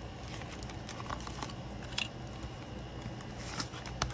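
Paper banknotes rustling and crinkling as they are counted out by hand into a cash envelope, with scattered small clicks and a sharper click near the end.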